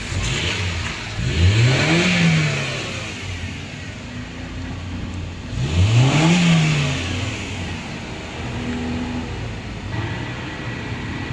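A motor vehicle engine revving up and dropping back twice, about four seconds apart, over a steady low hum.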